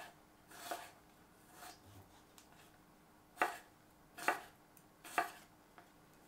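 Knife slicing a piece of unpeeled ginger: about five separate cuts, each a short sharp knock, roughly a second apart.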